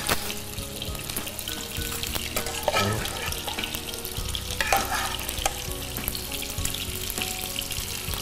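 Oil sizzling steadily in a frying pan as cherry tomatoes and olives are sautéed, with a metal utensil clinking and scraping against the pan now and then.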